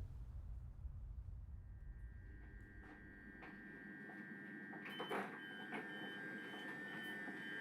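Faint steady high electronic hum. About halfway through, a higher beep starts repeating roughly twice a second, with a few soft clicks in between.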